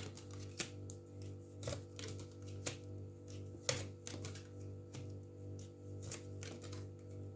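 Scattered light clicks and taps, roughly one a second, over quiet background music with a steady low hum.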